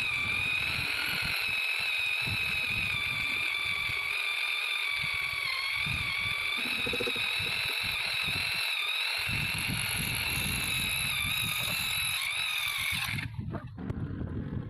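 Electric power tool's motor running with a steady high whine that wavers slightly, cutting off about a second and a half before the end.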